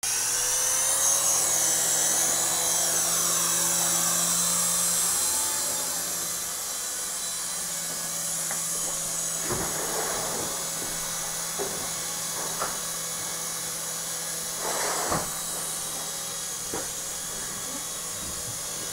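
Syma S111G micro RC helicopter's small electric motors and coaxial rotors whining. The whine is louder for the first five seconds or so, with its pitch gliding up and down as the throttle changes, then settles into a steadier, quieter hum. A few short knocks come partway through.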